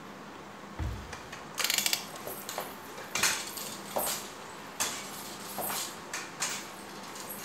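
Metal forearm crutches knocking and clinking on a hard floor as a person walks on them: a dull thump about a second in, a short clattering rattle, then sharp metallic taps at a walking pace.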